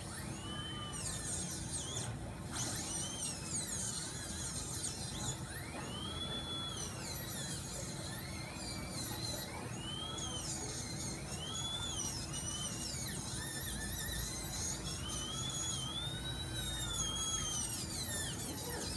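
Dental handpiece whining as it works on the teeth during braces removal, its pitch rising and falling again and again as it bears on the tooth and lets off.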